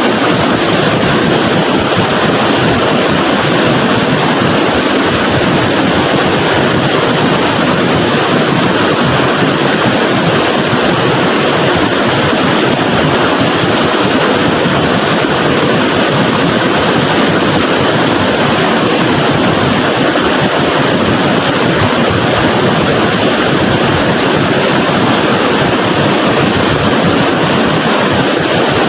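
A river swollen by flood water, rushing steadily: a loud, unbroken wash of water noise.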